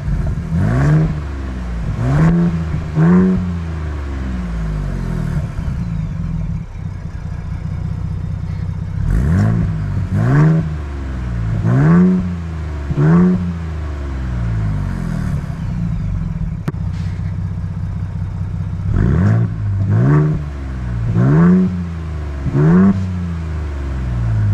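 2023 Ford Bronco Raptor's 3.0-litre EcoBoost V6 idling through its exhaust, with three sets of about four quick throttle blips, one set in each of its quiet, normal and Baja exhaust modes. The first set comes at the start, the second about ten seconds in, and the third near the end.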